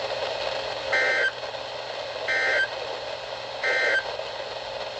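Emergency Alert System end-of-message: three short, identical bursts of SAME digital data tones, about a second and a half apart, over a steady broadcast hiss. They signal the end of the tornado warning alert.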